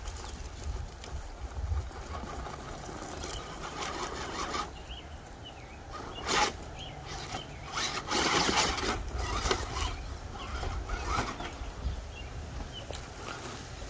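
Small electric motor and gears of a Gen8 RC rock crawler whirring as it crawls over bricks and wood. Its tires and chassis scrape and knock on the bricks, loudest about six seconds in and again around eight to nine seconds.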